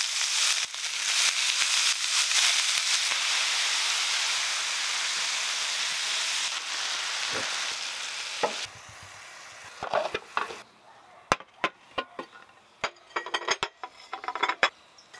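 Shredded sukuma wiki (collard greens) and onions sizzling in hot oil in a frying pan as they are stirred. The sizzle stops about nine seconds in, followed by a series of sharp clicks and clinks as ceramic plates are set out on a glass table.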